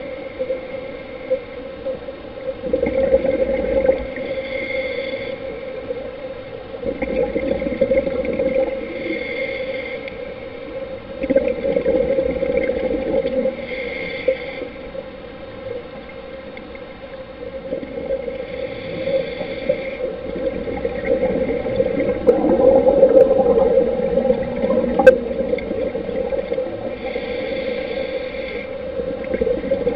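Scuba regulator breathing underwater: bubbly exhalations recurring about every four to five seconds over a steady low hum.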